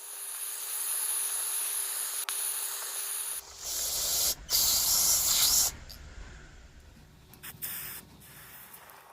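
Hissing spray of pressurized air or aerosol: a steady hiss for about three seconds, then two louder spurts with a low rumble underneath, dying away after about six seconds.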